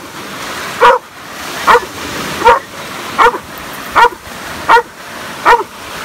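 Belgian Malinois barking steadily, seven sharp barks about one every 0.8 seconds, over the wash of small waves breaking on the shore.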